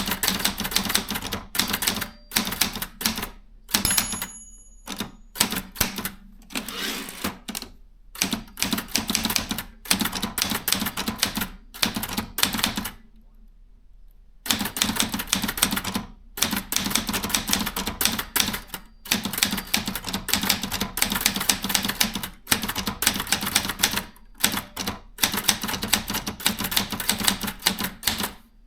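Brother 440 TR typewriter being typed on: runs of rapid keystrikes a few seconds long with short breaks between them, and a pause of about a second and a half near the middle.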